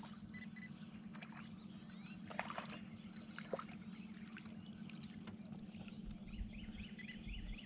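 Fishing reel being cranked as a crappie is reeled in, giving faint scattered clicks over a steady low hum.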